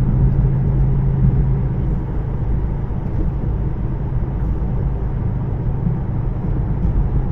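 Car driving, heard from inside the cabin: a steady low rumble of road and engine noise with a hum that eases slightly about two seconds in.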